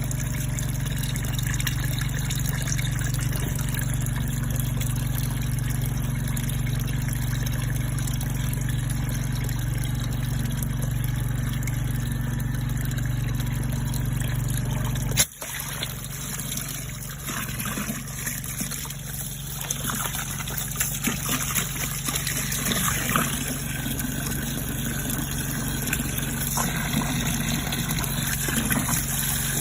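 High-pressure drain-jetting pump running with a steady hum while water trickles and splashes. About halfway through the sound breaks off abruptly and resumes with a lower hum and more uneven splashing.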